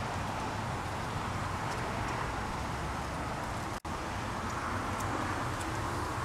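Steady outdoor background noise, a hiss with a low hum under it, that cuts out for an instant about four seconds in.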